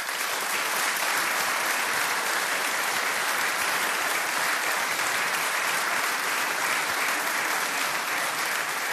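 Audience applauding steadily, a full round of clapping that keeps an even level throughout.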